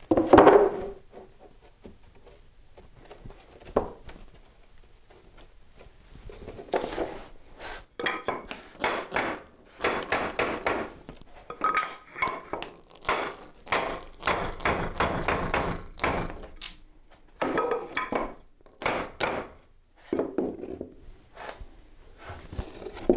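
Hammer striking a wooden 2x4 tapping block to drive the tongue and groove of an OSB-topped plastic-based subfloor panel together: runs of sharp, repeated knocks from about seven seconds in, with a pause before a second run. A single loud thud comes just after the start, as the panel is set down on the floor.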